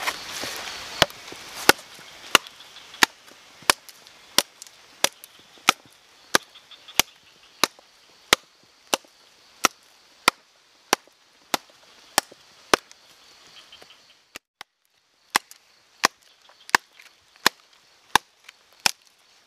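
A machete chopping a hard branch of firewood: sharp blows at a steady pace, about three every two seconds, with a short pause about three-quarters of the way through.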